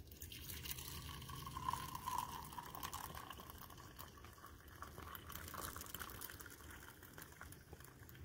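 Coffee poured in a steady stream from a French press into an enamel camp mug, faintly, with the sound of the cup filling.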